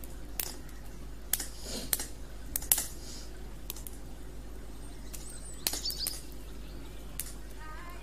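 Wood campfire crackling, with irregular sharp pops and snaps, the loudest about three seconds in. A bird chirps briefly past the middle.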